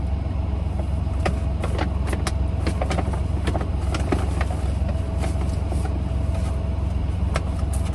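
Steady low hum of a truck idling, heard from inside its cab, with scattered crackles and clicks of shopping bags and product packaging being handled.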